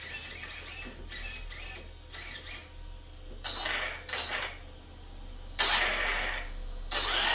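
Brushless motor (3660-size, 3200 kV) of an Arrma Granite VXL V3 RC monster truck spun up with the wheels off the ground in throttle blips, giving a high whine over the drivetrain noise: two short blips about three and a half seconds in, a longer one around five and a half seconds, then held running near the end. Before that, a few short whirs from the steering servo being worked.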